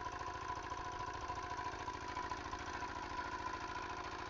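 Jiangfa single-cylinder diesel engine running steadily, driving an NS 100 irrigation water pump at about half throttle, with an even, rapid beat.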